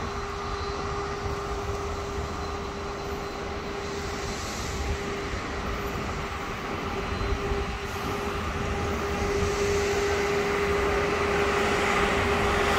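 Engine of a rail maintenance machine on the track, a steady drone that grows louder over the last few seconds as the machine approaches, with wind rumbling on the microphone.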